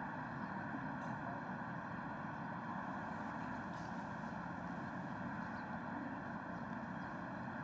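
Steady, even outdoor background noise with no distinct sounds standing out.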